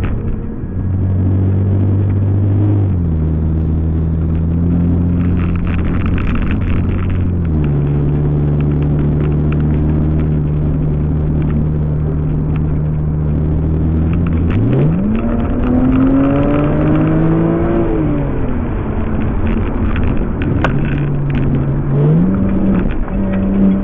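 Car engine heard from inside the cabin, a steady drone that steps up in pitch twice. About fifteen seconds in it revs up sharply, falls back slowly over a few seconds, and rises again near the end.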